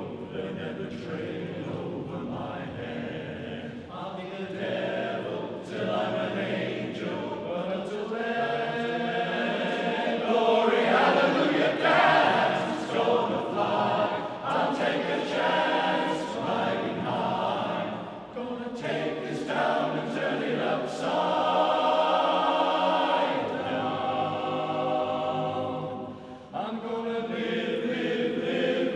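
Men's barbershop chorus singing a cappella in close four-part harmony, holding sustained chords that swell and fall in long phrases, with short breaks between phrases about two-thirds of the way through and near the end.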